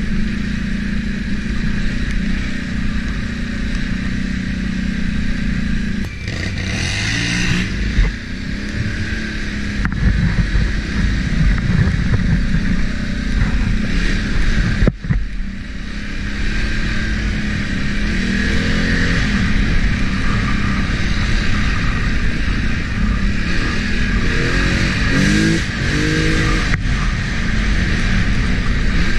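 ATV engine running under way, its revs rising and falling a few times. There is one sharp knock about halfway through.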